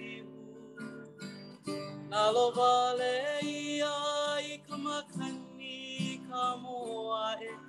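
A male voice singing a Hawaiian mele over strummed string accompaniment, holding a long, loud note from about two seconds in until past the middle.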